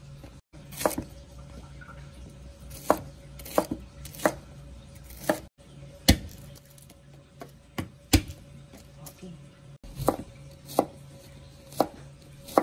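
Kitchen knife chopping cooking ingredients on a cutting board: single sharp knocks at an uneven pace, about one a second.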